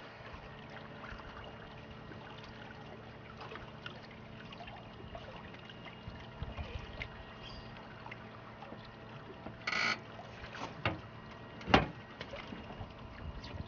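Quiet river ambience aboard a small aluminium boat, with faint scattered ticks. There is a short hiss just before ten seconds in and a single sharp knock a couple of seconds later.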